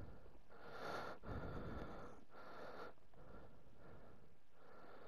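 A person breathing in short puffs through the nose, about one breath a second, close to the microphone.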